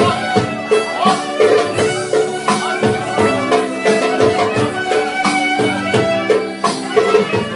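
Turkish song playing: music with sustained melody lines over a steady, evenly repeating beat.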